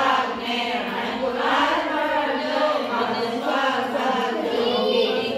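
A group of women singing a traditional Gangaur puja song together, a steady chant-like melody with long held notes.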